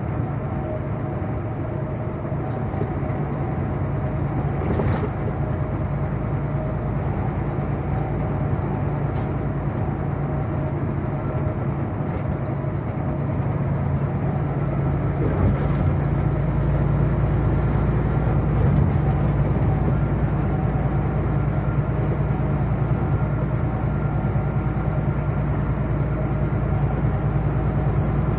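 Big rig truck cab at highway speed: the diesel engine's steady drone and road and tyre noise heard from inside the cab, getting slightly louder about halfway through, with a couple of faint clicks.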